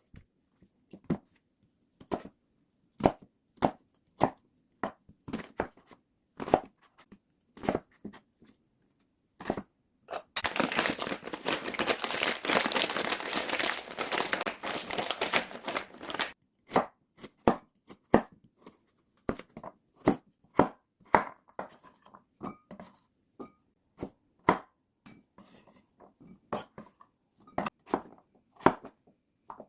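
Knife chopping food on a cutting board in single, spaced strokes. For about six seconds in the middle there is a dense crinkling rustle, like a plastic food packet being torn open and handled.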